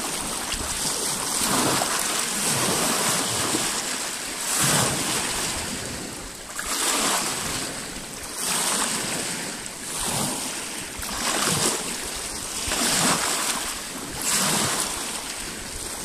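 Small lake waves lapping and splashing against a rocky shore, each wave washing in about every one and a half seconds over a steady water hiss.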